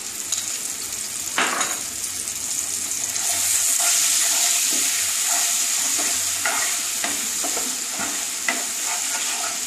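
Wet spice paste sizzling as it fries in hot oil in a non-stick kadai, stirred with a wooden spatula. The sizzle grows louder about three seconds in.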